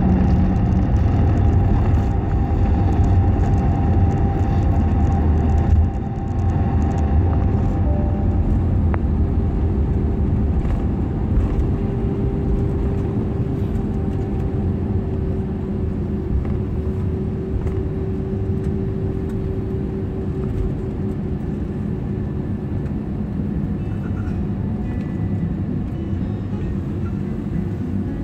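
Cabin noise of an Airbus A321 rolling on the ground after landing: a steady low rumble of the engines and wheels with a faint engine whine. It drops a step about six seconds in and then eases off gradually.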